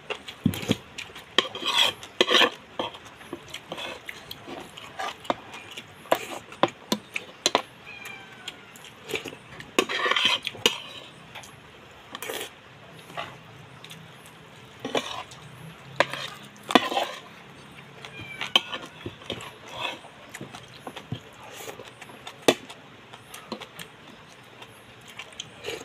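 Eating sounds at a table: spoons and bowls clinking, with irregular small clicks and knocks and a few longer, louder stretches of eating noise.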